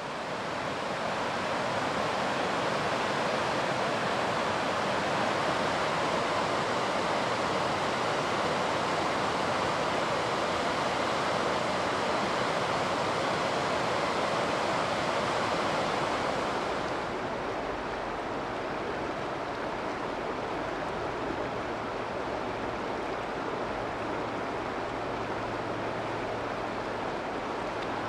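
Rushing river water running over rapids, a steady wash of noise. About seventeen seconds in it changes to a softer, duller rush with less hiss.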